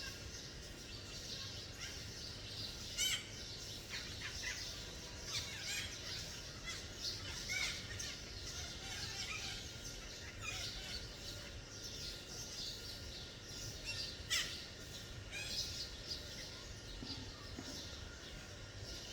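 Red-breasted parakeets calling: many short, shrill calls overlapping throughout, with louder single calls about three seconds in and again about fourteen seconds in.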